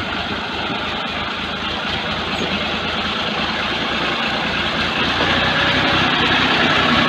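Ford 4560 tractor's diesel engine running steadily while it tows a loaded trolley through harvested maize stalks. It grows louder as the tractor comes up close.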